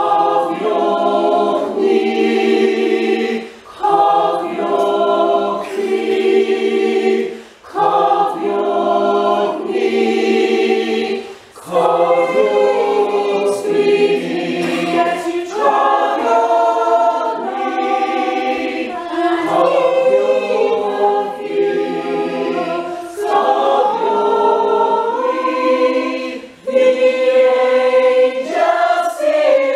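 A mixed community choir of men and women singing a slow song in harmony, in phrases of a few seconds with brief breaks for breath between them.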